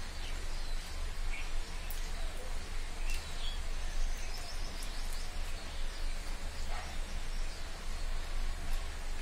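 Steady background noise with a low hum, scattered short high chirps, and soft chewing and hand sounds of rice being eaten by hand from a steel plate.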